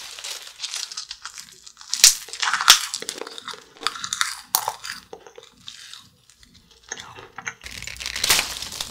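Close-up crunching and chewing of crisp wafer flying saucer candies bitten off a candy necklace, in irregular bites. The loudest crunches come about two to three seconds in, with softer chewing in the middle.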